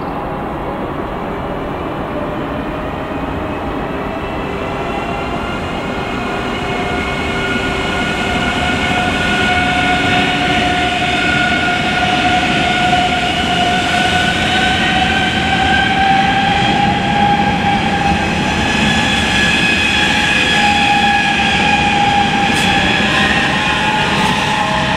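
DB ICE high-speed electric train running past at low speed, its traction motors giving a whine of several tones that slowly rise in pitch and then hold steady as it gathers speed, over wheel and rail noise that grows louder as the train draws close.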